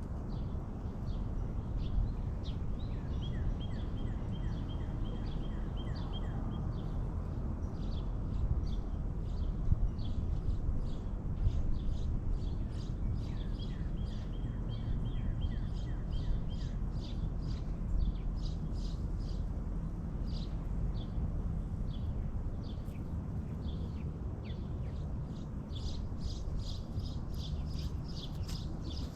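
Wild birds chirping over and over in short calls, with a fast trill a few seconds in and again about halfway, and busier chirping near the end. A steady low outdoor rumble runs underneath.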